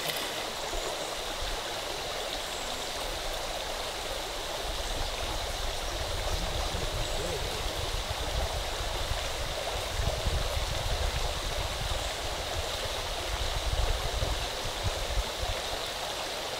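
Shallow river water running over a rocky bed, a steady rushing hiss. A low rumble joins in about three seconds in and fades near the end.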